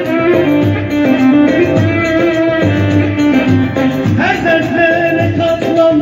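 Live dance music from a Korg Pa4X arranger keyboard: a melody over a steady bass-and-drum beat, with a rising slide in the melody about four seconds in.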